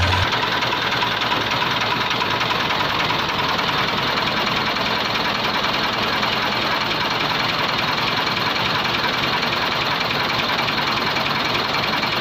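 Small tractor engine idling steadily, with a fast, even knocking beat.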